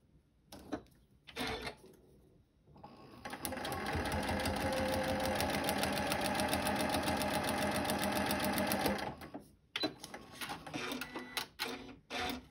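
Janome computerized sewing machine stitching steadily for about six seconds, with a fast, even needle rhythm, sewing short 1.5-length stitches through fabric and the foundation paper. It starts about three seconds in, and a few clicks follow when it stops.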